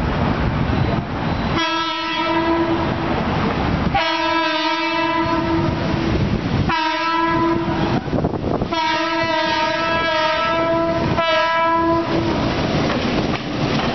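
Diesel locomotive's air horn sounding a series of five blasts, long, long, short, long, short, as it comes up to a street crossing, over the steady rumble of the approaching train.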